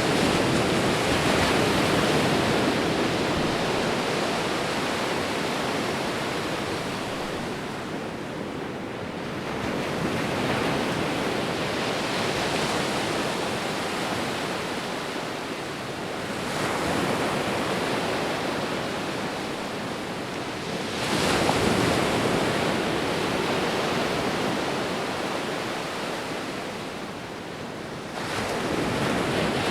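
Sea waves breaking and washing in: a continuous rushing surf that swells with each new wave about every five to ten seconds, then slowly ebbs.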